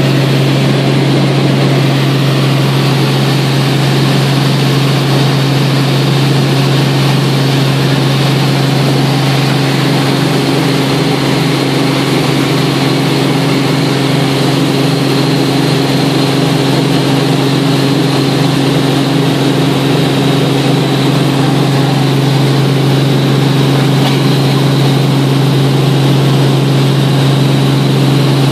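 Helicopter engine and rotor in flight, heard from inside the cabin: a loud, steady drone with a strong low hum.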